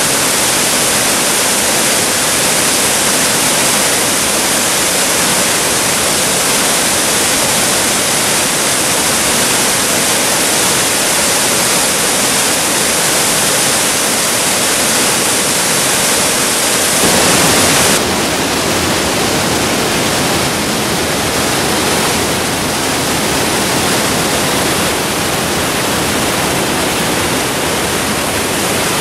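Waterfall rushing steadily. About two-thirds of the way through the sound changes abruptly, with less hiss and more low rumble.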